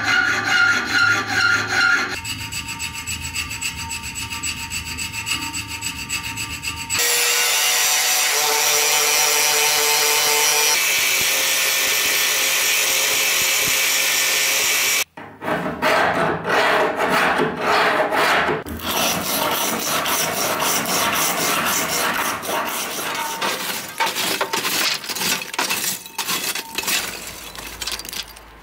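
A hand file rasping back and forth across a steel knife blade clamped in a vise. About seven seconds in comes a steady whine of an angle grinder grinding the blade. After a sudden cut, rapid rasping strokes follow.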